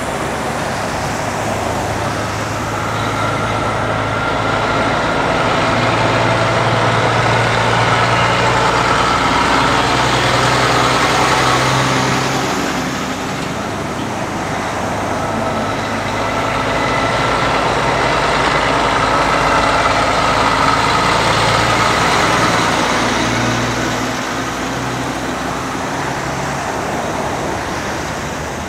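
Heavy trucks pulling B-double race transporter trailers passing close by, one after another: diesel engine drone with tyre and road noise. It grows louder and fades twice.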